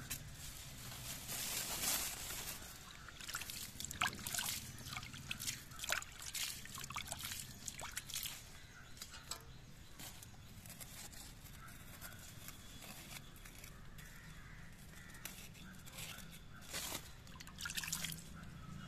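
Water poured and splashed onto soil, trickling and dripping into a muddy puddle in irregular splashes. The splashes are heaviest in the first few seconds and again near the end.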